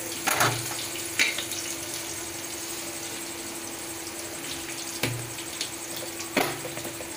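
Chopped onion and green chilli sizzling in hot oil in an aluminium pressure cooker, a steady hiss. A few short knocks come through it, about a second in and again near five and six seconds.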